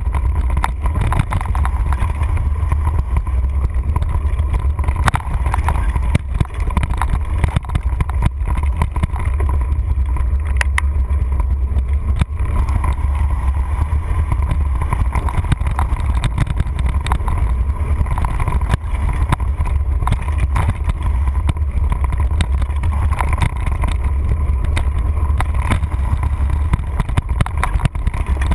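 Mountain bike riding fast down a dirt singletrack, heard from a handlebar-mounted camera: a steady low rumble of trail vibration and wind with many sharp clicks and rattles from the bike over the rough ground.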